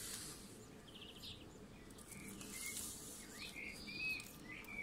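Faint chirps, short whistles and a buzzy trill of small birds, coming more often in the second half, over soft patches of hiss.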